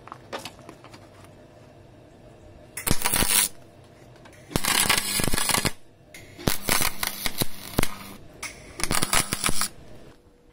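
MIG welder arc crackling on box-section steel, laying four short welds a second or so each, with pauses between them.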